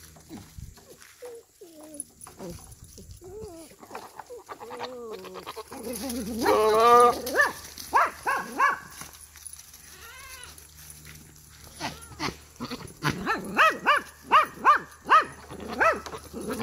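A fainting goat buck in rut making courting calls: scattered bleating sounds, one louder drawn-out call about six seconds in, then a fast run of short, stuttering calls near the end.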